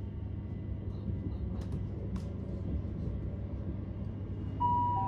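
Class 387 Electrostar electric multiple unit running, a steady low rumble with a faint hum heard inside the carriage, with a couple of faint clicks. Near the end the onboard public-address chime sounds two notes, a higher one then a lower one, the signal that a next-station announcement is about to follow.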